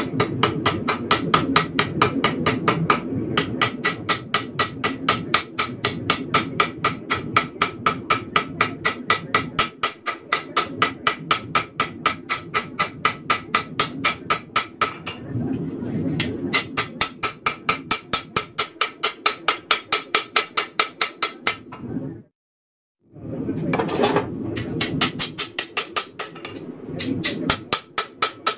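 Hand hammer striking red-hot 1084 carbon steel on an anvil to forge a bowie knife blade, about four ringing blows a second in runs with short pauses. A low rumble runs underneath, and the sound cuts out completely for about a second near the end.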